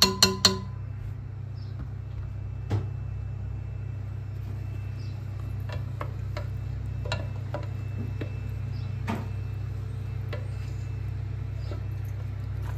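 Soft scattered clicks and knocks from a wooden spoon stirring a thick, simmering purée in a stainless steel pot, over a steady low hum.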